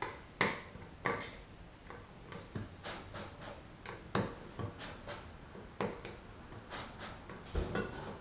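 A small metal tool prying at the lid of a metal can of tooling gelcoat, worked around the rim: irregular clicks and scrapes of metal on metal, with the loudest knock near the end.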